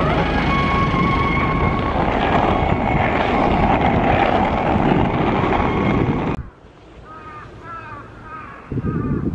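Wind buffeting the microphone and the rumble of penny board wheels rolling on asphalt while riding, with a few faint steady tones in the first two seconds. About six seconds in it cuts off abruptly to a quieter scene of birds calling in short repeated notes, with a brief gust of wind near the end.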